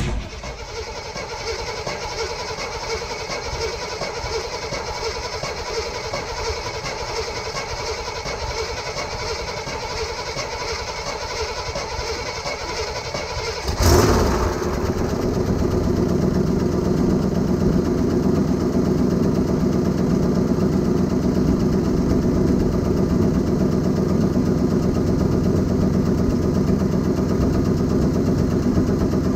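1972 Jeep Wagoneer cold-starting after sitting a long time. The starter cranks the engine for about fourteen seconds, then the engine catches with a sudden loud burst and settles into a steady, even idle.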